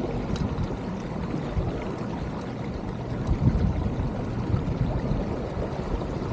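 Wind buffeting the microphone aboard a moving sailboat, mixed with water rushing along the hull: a steady, uneven rumble with small gusty swells.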